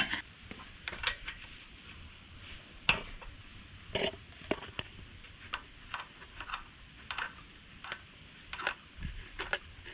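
Scattered light clicks and taps of a clear plastic bottle and hand tools being handled against a small engine's carburetor and fuel tank while a fuel sample is drained, the sharpest knock about three seconds in.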